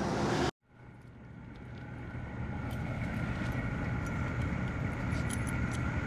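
Diesel engine running steadily with a steady whine over its low rumble. It fades in after a brief dropout about half a second in, and a few light clicks come near the end.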